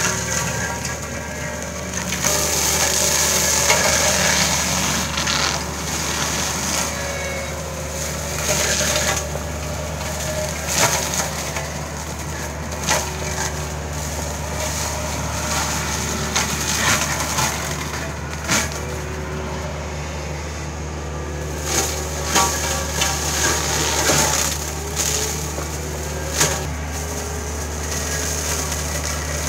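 Kubota KX71-3 mini excavator's diesel engine running steadily under load while its hydraulic flail mulcher head shreds brush and branches, with many sharp cracks and snaps of splintering wood.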